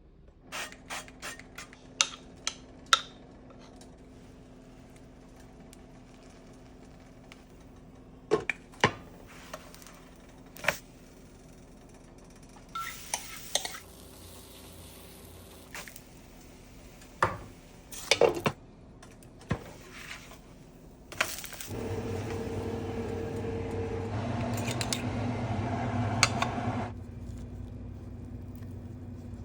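Kitchen utensils and cookware clinking and knocking in a series of separate sharp clicks and clatters, over a faint steady hum. About two-thirds of the way through, a louder steady rushing noise starts and runs for about five seconds before cutting off.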